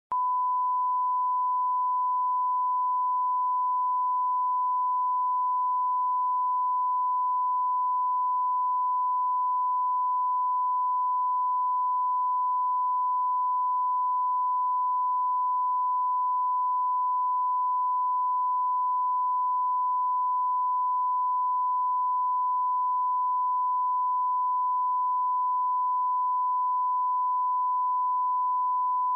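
Broadcast line-up test tone: a single steady, unbroken pure tone at a fixed mid pitch, the reference tone played with colour bars at the head of a programme tape.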